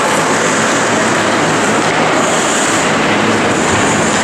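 Ice hockey play on an indoor rink: skate blades scraping and cutting on the ice over a loud, steady arena noise, with brief sharper scrapes about two seconds in and near the end.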